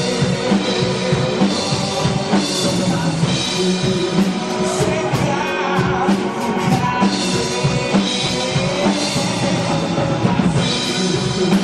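Pearl drum kit played in a rock beat along with band music, kick drum, snare and cymbal strikes over sustained pitched instruments.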